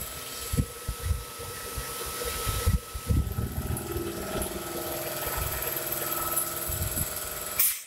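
Vertical machining centre cutting a pocket into a piston: steady spindle and cutting noise with a high whine and uneven low thumps. A brief loud burst comes near the end, and then the noise cuts off suddenly.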